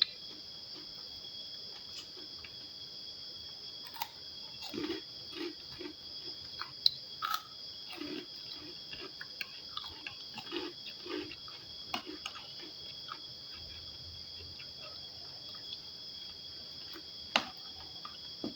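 Close-up chewing and mouth sounds of someone eating fried rice with raw shallots, with scattered sharp clicks, mostly in the first half. Behind it runs the steady high chirring of crickets.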